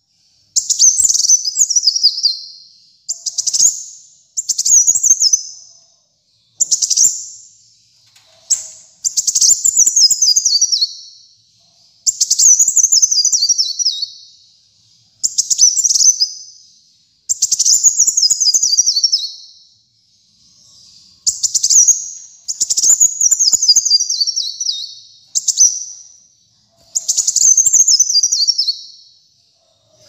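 Male kolibri muncang sunbird singing loudly in a run of high, rapid phrases, each a quick falling series of notes about one to two seconds long, repeated about a dozen times with short pauses between.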